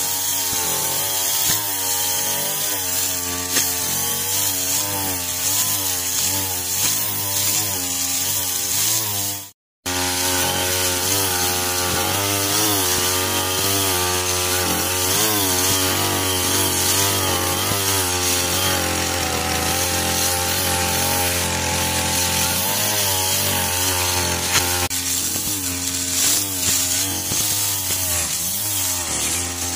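Engine-driven brush cutters running and cutting grass and weeds, the engine pitch rising and falling as the throttle and load change with each swing. The sound drops out briefly about ten seconds in, then another brush cutter carries on.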